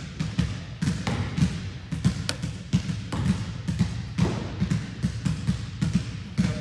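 A basketball dribbled on a hardwood gym floor, dull thumps a few times a second, as a player bounces it at the free-throw line before shooting.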